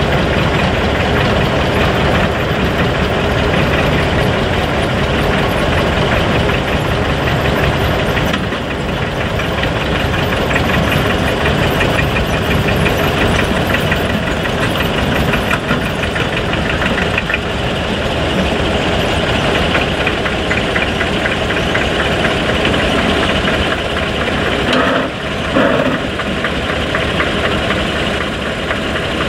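Small narrow-gauge diesel locomotive engine running steadily at low revs. A brief knock sounds about 25 seconds in.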